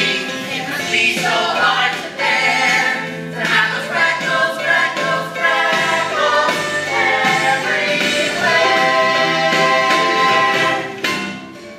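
Several voices singing a musical theatre number together over instrumental accompaniment, dropping away just before the end.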